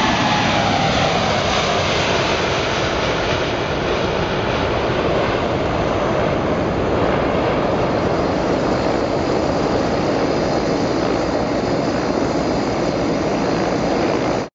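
Boeing 747-8I's four GEnx turbofans at takeoff thrust as the jet climbs away. A whine falls in pitch in the first second, then steady, loud jet noise eases slightly as the aircraft recedes. The sound cuts off suddenly near the end.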